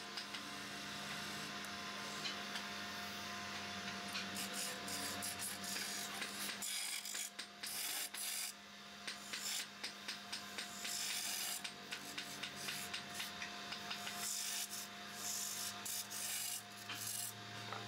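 A wood lathe hums steadily while a hand-held turning tool cuts into a spinning wooden table-leg blank. The cut is a rough hissing scrape that swells and drops as the tool is worked along the wood.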